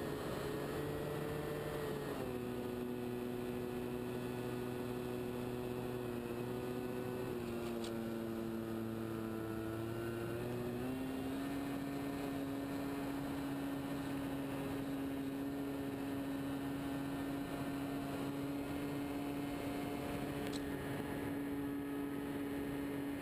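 Engine and propeller of a radio-controlled scale de Havilland Tiger Moth running in flight, heard from on board as a steady drone. The engine speed drops about two seconds in and sags a little further around seven seconds. It picks up again about eleven seconds in and then holds steady.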